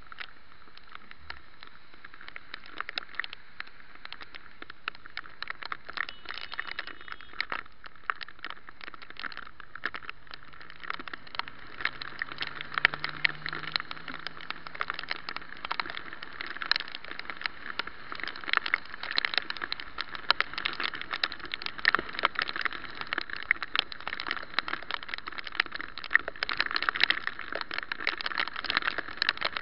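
Bicycle ride in the rain heard through a handlebar camera's housing: a muffled hiss of wet road with dense, irregular ticking and crackling from raindrops and bike rattle on the housing, growing louder through the ride.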